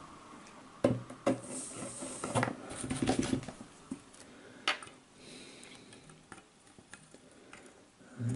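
Handling noise on a workbench: scattered small clicks and taps as fingers move solder wire and a soldering iron around a small LED driver circuit board, with a few sharper ticks in the first few seconds.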